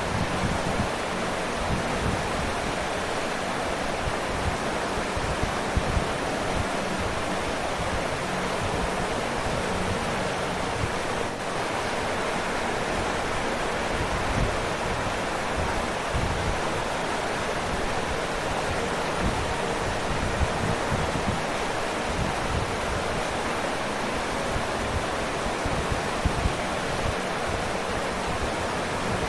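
Waterfall: a steady, even rush of falling and splashing water, with one brief slight dip about eleven seconds in.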